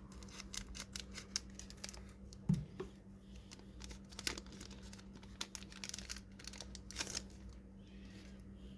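Foil wrapper of a One Piece card game OP14 booster pack crinkling and tearing as it is opened by hand, in a run of sharp crackles, with one louder thump about two and a half seconds in.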